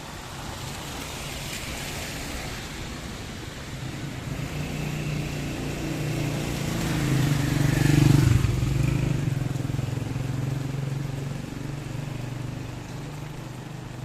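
A motor vehicle passing close by on a street, its engine hum and tyre noise growing louder, peaking a little past the middle, then fading away.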